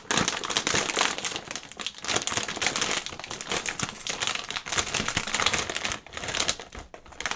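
A plastic Nongshim Banana Kick snack bag crinkling and crackling as it is pulled and torn open by hand, with a short pause about six seconds in.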